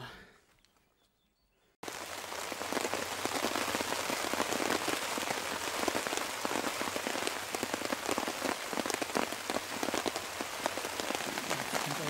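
Near silence at first, then about two seconds in steady rain starts abruptly, falling on a tarp shelter overhead with many single drops ticking.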